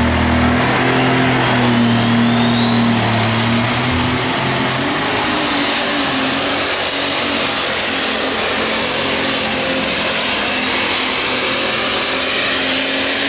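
Super stock pulling tractor's engine running at full power while hauling a weight-transfer sled. A high turbocharger whine climbs in pitch for about five seconds and then holds steady over the loud engine noise.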